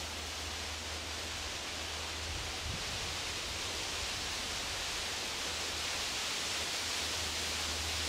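Steady outdoor background hiss with a low steady rumble underneath, growing slightly louder in the second half; no distinct calls or events.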